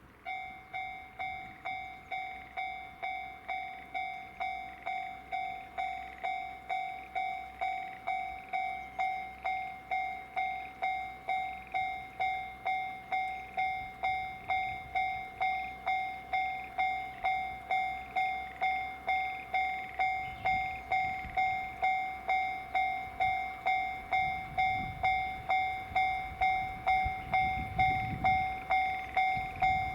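Japanese level-crossing warning bell ringing in a steady rhythm, about five strokes every three seconds. From about two-thirds of the way in, the low rumble of the approaching Series 87 Twilight Express Mizukaze diesel hybrid train builds and grows louder.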